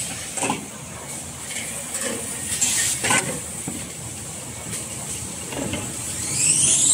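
Toilet-roll rewinding machine running: a steady hissing factory noise broken by irregular knocks and clatters. Near the end a rising electronic sweep comes in as music starts.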